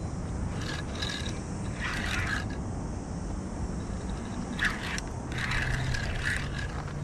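Two spells of irregular scraping close to the microphone, about a second in and again from about four and a half seconds, over a steady background hiss.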